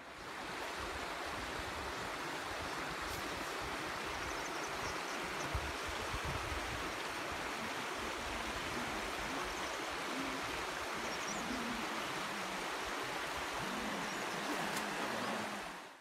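Shallow mountain river water, the Azusa River, rushing steadily over gravel and stones, with some uneven low rumble of wind on the microphone. It fades out abruptly at the very end.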